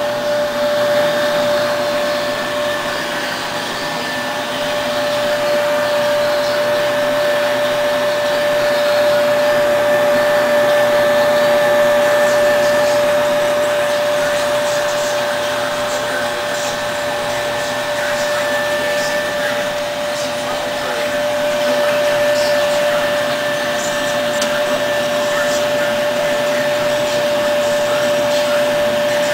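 Shanklin A27A automatic L-sealer shrink-wrap machine running: a steady whir with a constant whine over it, and faint light clicks now and then.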